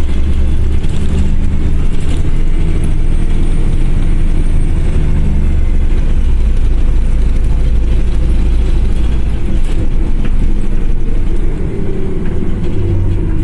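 MAZ-103 city bus heard from inside its cabin while driving: a loud, steady low engine drone with road noise. It gets quieter about eleven and a half seconds in.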